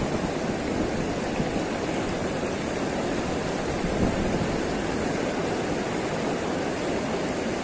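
River water rushing over a concrete weir and spilling down its face in white water, a steady rush.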